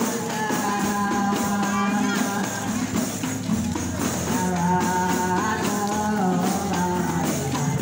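Rebana frame-drum group music for a wedding procession: a steady drum beat with a held, wavering melody over it.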